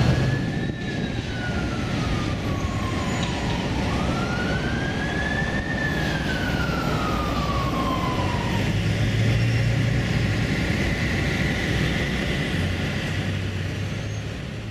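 Street traffic running steadily, with an emergency vehicle's siren sounding a slow wail: the tone falls over a few seconds, then rises and falls once more.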